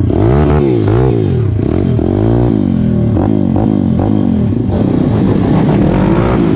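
Pit bike engine revving up and dropping back again and again as the throttle is worked, then holding a steadier pitch for the last second or two.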